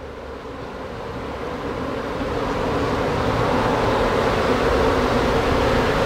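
Honey bees from an opened hive buzzing, a steady hum that grows louder through the first half and then holds.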